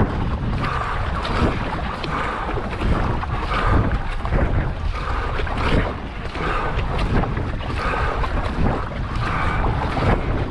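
Paddle strokes splashing through the water in a steady rhythm, a little under one a second, with wind rumbling on the microphone.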